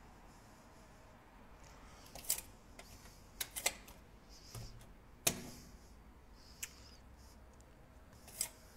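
Scattered sharp clicks from a hotel door's key-card lock as a card is worked in and out of its slot reader, about six clicks with the loudest about halfway through. The lock is not opening.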